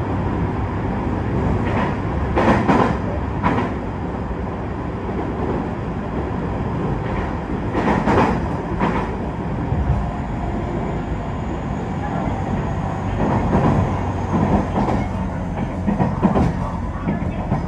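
Passenger train running at speed, heard from inside the carriage: a steady rumble of wheels on rail, with sharp clacks as the wheels cross rail joints several times, mostly in pairs. It is passing through a tunnel and comes out into the open near the end.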